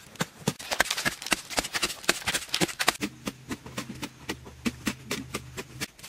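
Shovelled soil and clods of earth landing on a heap of dirt, a rapid patter of small thuds and crumbles. About halfway it thins to scattered taps over a low steady hum, which stops just before the end.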